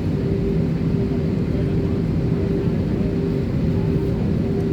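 Steady jet airliner cabin noise on the ground before takeoff: engines and air-conditioning running evenly, with a steady hum tone.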